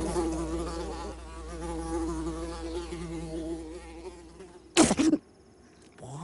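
A fly's buzz, a wavering drone that fades away over the first four seconds, then a short, sharp, loud burst about five seconds in.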